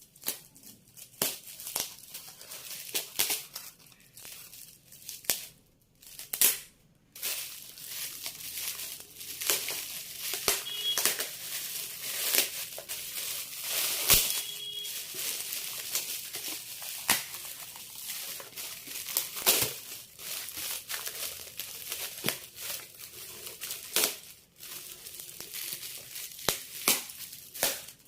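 Gift wrapping being torn and crumpled by hand as a present is unwrapped: a long run of crinkling, rustling and crackling, with a brief pause about six seconds in.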